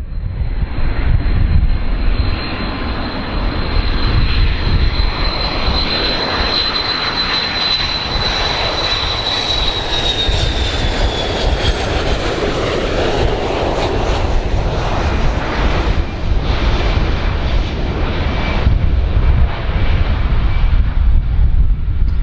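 Airplane engines running loud: a deep rumble with a high whine that holds steady, then falls in pitch about ten seconds in.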